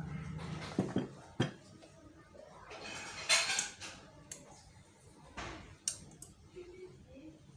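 Metal parts of a car starter motor knocking, clicking and scraping as its housing is fitted back together by hand: a few sharp knocks in the first second and a half, a longer scrape about three seconds in, and two more clicks later.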